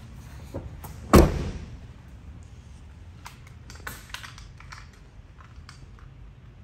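Footsteps climbing into an empty cargo van with a metal roller-track floor: one heavy thump about a second in with a short ringing tail, then several lighter clicks and knocks.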